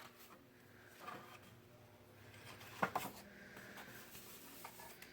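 Quiet handling of paper and card stock, with a single sharp tap about three seconds in.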